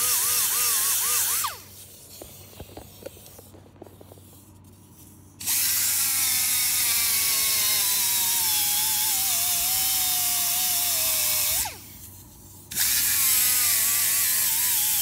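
Right-angle die grinder with a blue abrasive disc sanding the aluminium lower unit of an Evinrude 140 outboard down to bare metal around a crack, preparing it for welding. It runs in three spells, a hiss with a wavering whine that drops in pitch as the disc bears down. It stops twice: once for about four seconds, once for about a second.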